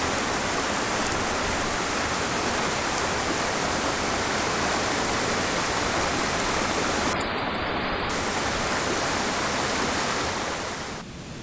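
Waterfall, a steady rush of falling water that becomes suddenly quieter about a second before the end.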